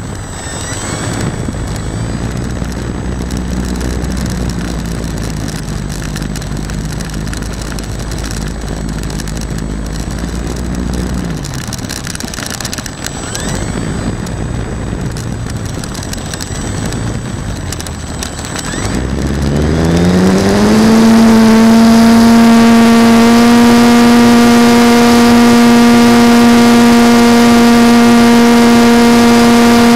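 Rough wind-and-handling rumble, then about twenty seconds in a model airplane's motor spins up with a rising whine. It settles into a loud, steady high-pitched propeller drone at full power as the plane climbs.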